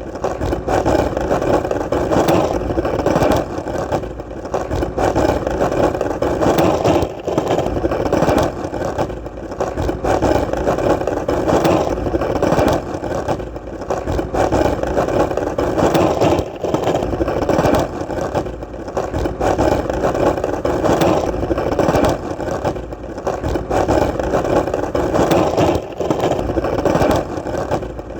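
Skateboard wheels rolling steadily on solid ground, a continuous rumble with short dips in level every four to five seconds.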